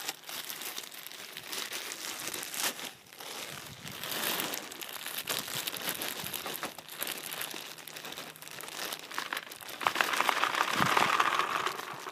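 Paintballs being poured into a paintball marker's hopper: a continuous crinkling, rattling clatter, loudest near the end, with some balls spilling.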